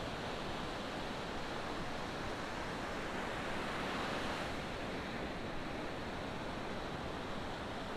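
Ocean surf: a steady wash of breaking waves, with one wave swelling louder about three to four seconds in.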